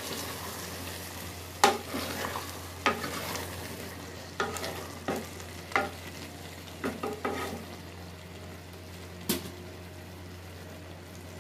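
A spoon stirring a thick minced-meat and potato curry in an open aluminium pressure cooker, scraping through it and knocking against the pot about eight times at irregular intervals, over a steady sizzle of the cooking curry.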